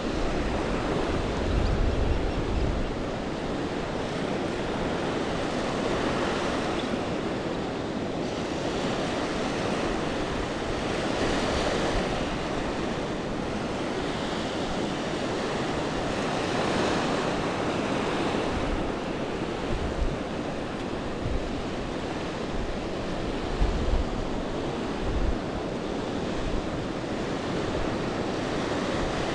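Gentle surf washing onto a flat sandy beach, a steady hiss of water that swells every few seconds as each wave runs in. Short gusts of wind buffet the microphone, loudest near the start and again near the end.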